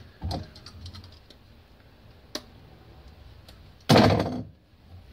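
Hands handling a tube of threadlocker and a spark plug: a knock and a few light clicks, a single sharp click about two seconds later, then a loud, brief rustling scrape near the end.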